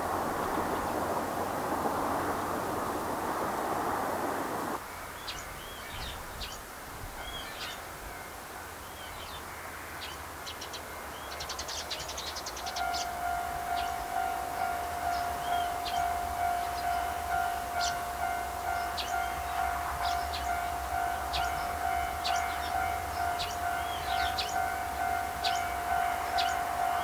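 Railway level-crossing warning bell starting about halfway through: a steady electronic ding repeating rapidly, the signal that a train is approaching. Birds chirp throughout, and a rushing noise fills the first few seconds, then cuts off suddenly.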